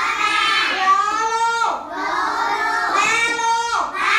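A young child's voice reading Vietnamese syllables aloud in a drawn-out, sing-song chant, about one long syllable a second.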